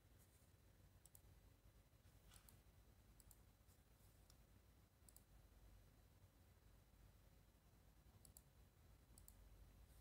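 Near silence with about eight faint, short mouse clicks scattered through it, as slides are advanced in presentation software.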